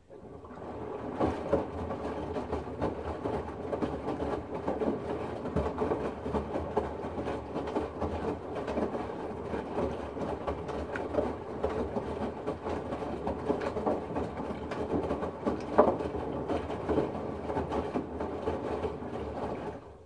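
LG front-loading washing machine's drum tumbling a load of laundry in a lot of water: wet clothes splashing and water sloshing, with many small irregular thuds. It comes in suddenly out of quiet and runs as one long tumble.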